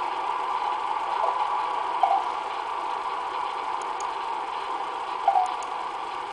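Common ravens making a rapid, machine-like rattling call, steady throughout, with a short louder note about two seconds in and another about five seconds in. It is an old garden recording played back from a computer and re-recorded.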